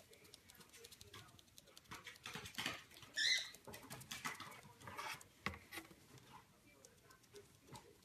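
Small, faint scratches and taps of a sun conure moving about under a cardboard box, with one short high squeak about three seconds in.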